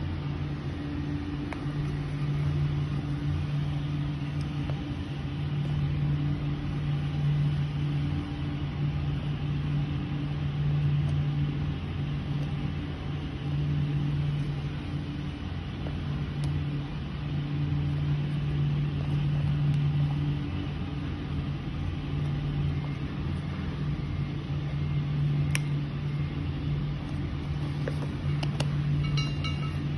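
A steady low mechanical hum that slowly swells and fades. A few small clicks near the end, as plastic valve parts and a cap are handled.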